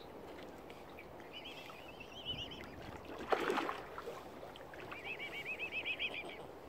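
Bird calling: two rapid trilling runs of high, wavering notes, with a single louder, shorter sound in between about three and a half seconds in, over a steady low background hiss.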